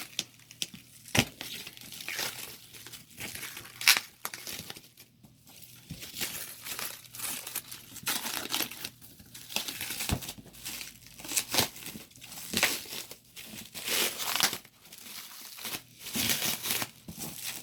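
Shipping packaging crinkling and tearing as it is pulled and worked open by hand, in irregular rustling bursts with a few sharp clicks.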